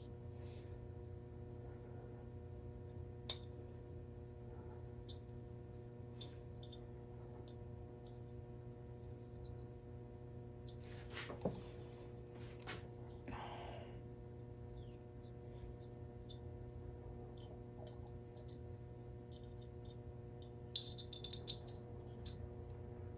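Faint, sparse small clicks and taps of new spark plugs and a gap gauge being handled while the plug gaps are checked, with a small cluster about halfway through and another near the end, over a steady low hum.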